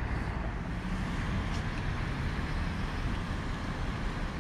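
Steady rumbling background noise with no distinct events.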